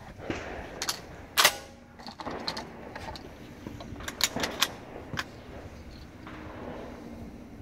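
Shotgun being handled and reloaded between clay targets: a scattered series of short, sharp metallic clicks and clacks as shells are handled and the action is worked. The loudest is a single sharp crack about a second and a half in.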